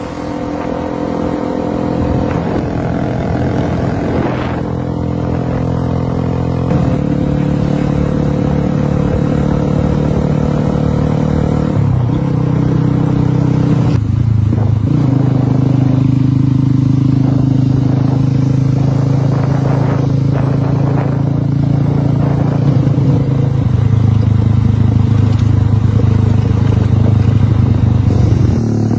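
Scrambler motorcycle engine running under way, its note holding steady for stretches and changing pitch several times, with short breaks about twelve and fourteen seconds in, as with gear changes.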